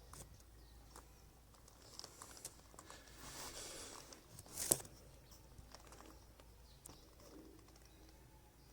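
Pigeon wing flaps, a faint flutter swelling just past three seconds in and ending in one sharp click, among scattered small ticks.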